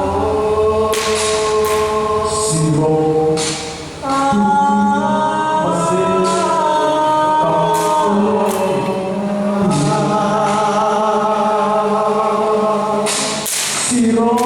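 Music: a group of voices singing long held notes together in a slow, chant-like melody, with a brief dip about four seconds in.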